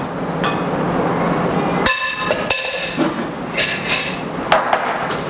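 Glass and ceramic dishes clinking as they are handled and set down on a kitchen counter: about five sharp clinks, each ringing briefly, starting about two seconds in.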